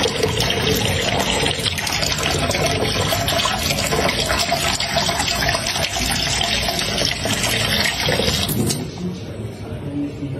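A thin stream of water from a kitchen tap splashing into a metal bowl in a sink while a cat's paw bats at it, a steady splashing that grows softer near the end.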